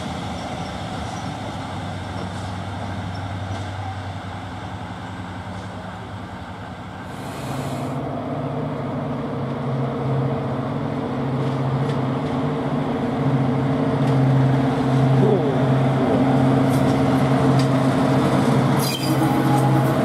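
A Class 55 Deltic diesel locomotive approaching and passing close, its twin Napier Deltic two-stroke engines running with a steady drone that grows louder as it nears. Before that, a train is heard pulling away into the distance.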